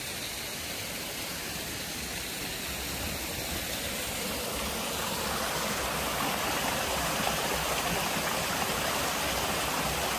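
Small waterfall splashing into a rock pool: a steady rush of falling water that grows louder about halfway through.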